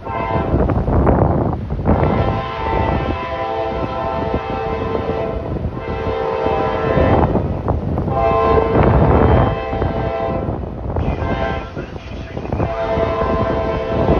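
Diesel locomotive's multi-chime air horn blowing a series of long and short blasts from an oncoming train, over a low rumble. Each blast is a chord of several steady tones.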